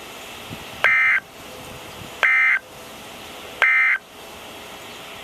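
Three short bursts of NOAA Weather Radio SAME digital data tones, a buzzy two-tone warble, about a second apart. They are the end-of-message code that closes the warning broadcast.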